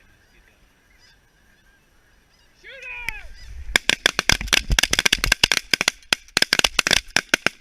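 A goose honks once, then several shotguns open fire in a rapid, ragged volley of dozens of blasts at incoming snow geese.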